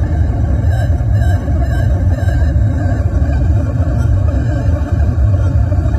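Harsh noise music played live on electronics and effects pedals: a loud, continuous wall of distorted noise dominated by a heavy low rumble, with warbling high tones weaving through it during the first few seconds.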